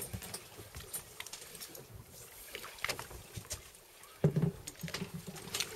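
Water slapping against the hull of a small fishing boat at sea, with scattered small knocks and clicks and a heavy thump about four seconds in.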